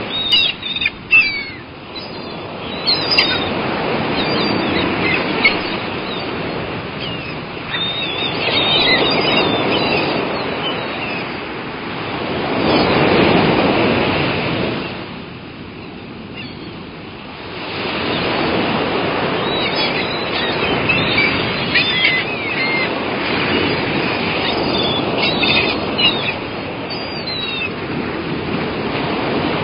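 Seagulls calling in scattered bursts of short, high cries over surf that swells and recedes in slow waves.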